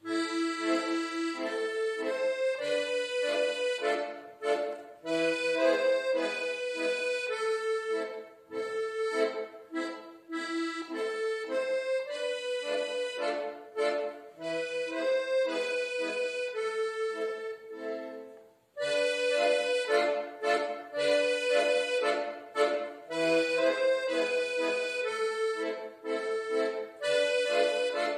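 Piano accordion played solo: a melody over chords in short, detached notes, starting at the beginning after a moment of silence. The playing stops briefly about two-thirds of the way through, then goes on.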